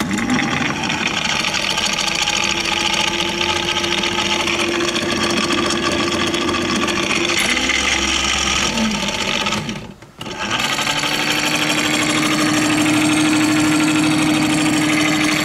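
Prowler 55 lb thrust electric trolling motor running with a loud, steady hum under a rough, buzzing mechanical noise. It stops briefly about ten seconds in, then runs again. The owner takes the noise for shot bearings.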